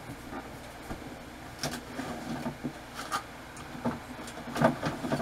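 Refrigerator door being opened and things moved about inside it: a scatter of short knocks and clatters, most of them after the first second and a half.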